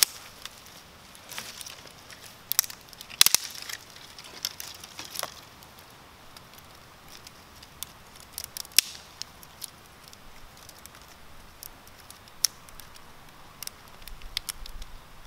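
Small dry twigs clicking and snapping as they are handled and set into a teepee fire lay: a cluster of sharp cracks a few seconds in, then scattered single ticks.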